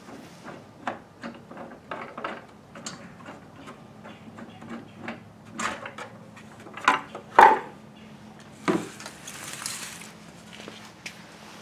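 Irregular clicks, knocks and rattles of parts being handled on a power wheelchair during battery installation, with a louder double knock about seven seconds in and a short sliding hiss a little later.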